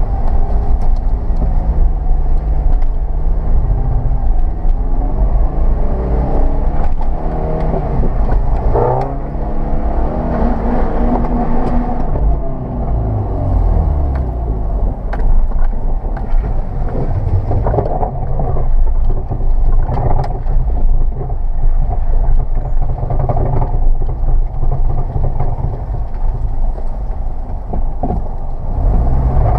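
1999 Subaru Forester's flat-four engine running and revving under load as it is driven, its pitch rising and falling, with sharp mechanical knocks now and then. This is the rotation-related clunk that shakes the car on climbs and when starting off, and it still happens after the front CV joints were replaced.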